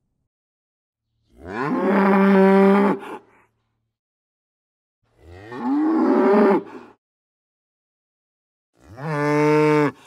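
Cow mooing three times, each moo lasting a second or so with pauses between; the first two rise in pitch as they begin.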